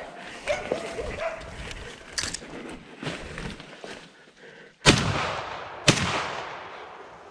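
Russo-European Laika barking a few short times near the start, then two shots from a hunting shotgun about a second apart, each trailing off.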